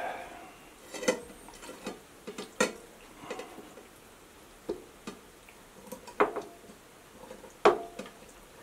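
Metal rotisserie spit and fork clinking and tapping against a ceramic plate as they are worked into a raw game hen: scattered sharp clicks, the loudest near the end.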